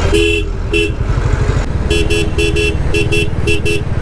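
Royal Enfield Classic 350's single-cylinder engine running steadily under the rider, with a vehicle horn sounding short beeps: one or two near the start, then a quick string of them from about halfway through.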